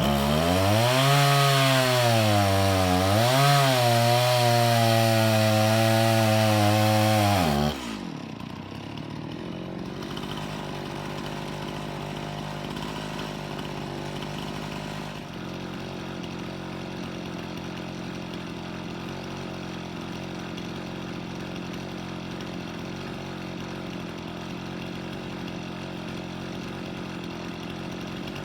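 Chainsaw running at full throttle in a cut, its pitch sagging and recovering as the chain loads up. About eight seconds in the throttle is released and the saw drops to a steady idle.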